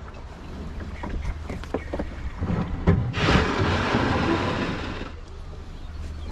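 Small sailing dinghy under way in wind and choppy water: wind rumbling on the microphone, scattered knocks from the boat, and a rush of water about two seconds long starting about three seconds in.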